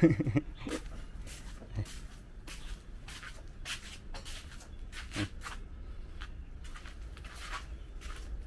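Footsteps scuffing over a grit-covered tile floor: an irregular string of light scuffs and clicks, two or three a second.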